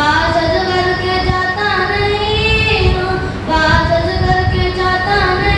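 A child's voice singing solo in long melodic lines, with held notes that bend and glide and short breaks between phrases, in the manner of devotional chanting.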